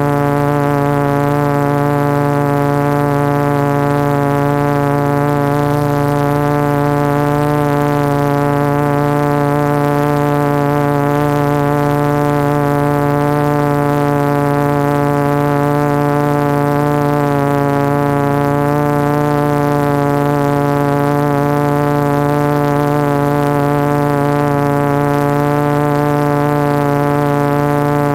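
Multistar 2212 brushless motors spinning 12-inch carbon-fibre propellers on a 450-size quadcopter, picked up by the GoPro mounted on its frame: a loud, steady, many-toned hum as the drone hovers, its pitch wavering slightly as the motors adjust.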